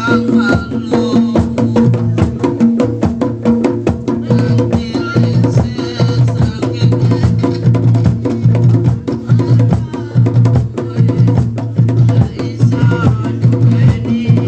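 Javanese bantengan folk music: fast, dense drumming and percussion over a steady sustained tone.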